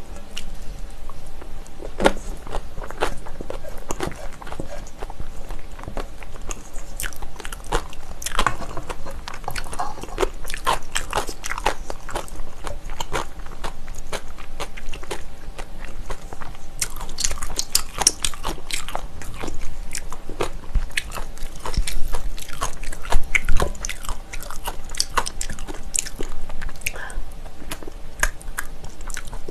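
Close-miked chewing and mouth smacking on a spoonful of bibimbap with crunchy vegetables, a run of irregular wet clicks and crunches. A metal spoon scrapes and clinks in a stainless steel mixing bowl in between bites.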